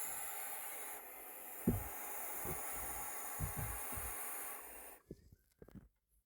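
Barn owlets hissing steadily in the nest box, the snoring hiss of young barn owls, with dull thumps of handling. The hiss stops abruptly about five seconds in, leaving a few faint knocks.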